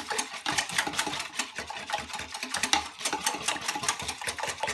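A utensil stirring briskly in a glass measuring jug, clicking and scraping against the glass in a quick, even rhythm as casserole mix is whisked into water.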